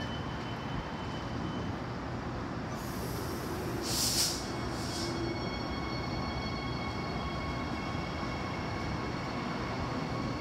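Transperth B-series electric multiple unit pulling out of a station: a steady rumble of the train, a loud hiss of air about four seconds in, then a steady electric whine from the traction equipment as it moves off.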